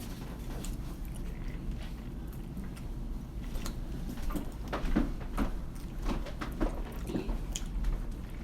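Eating sounds: fried chicken being bitten and chewed, with scattered short crunches and mouth clicks over a steady low room hum, growing busier about halfway through.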